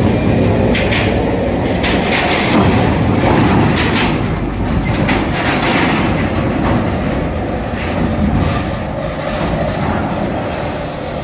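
Loaded car-carrier truck driving onto a ferry's steel ramp, its wheels clanking over the metal plates in an irregular run of knocks over a steady engine and rolling noise.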